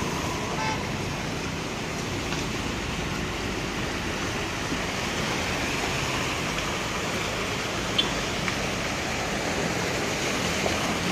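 Cars and a van driving slowly through a flooded road, their tyres pushing through the water with a steady rushing splash and a low engine hum underneath.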